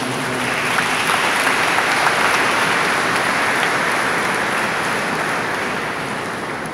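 Congregation applauding in a large church, building up over the first couple of seconds and fading toward the end.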